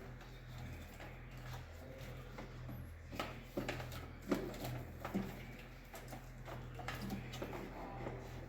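Scattered light clicks and knocks of hand work on a distribution board: tools and conductors being handled while wires are terminated into circuit breakers. A steady low hum runs underneath.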